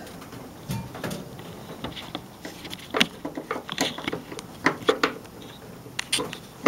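Screwdriver tightening the small screws of a Model A Ford's wiper arm at the wiper motor: irregular light clicks and scrapes of metal on metal.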